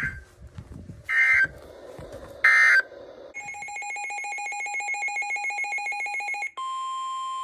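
Weather radio alert sequence: three short bursts of warbling digital header data, then a rapidly pulsing electronic alert tone for about three seconds, then a steady single-pitch warning alarm tone beginning near the end, the signal that a new warning bulletin follows.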